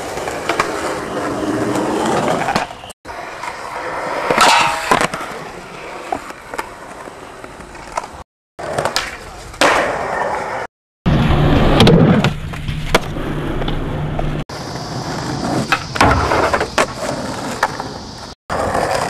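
Skateboard wheels rolling on concrete and asphalt, with sharp clacks of boards popping and landing, across several short clips. A steady low hum sits under one clip just past the middle.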